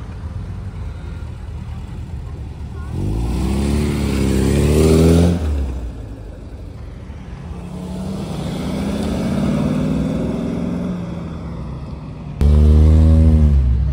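Cars pulling away one after another, each engine's pitch rising as it accelerates. The loudest starts suddenly near the end and its pitch then falls.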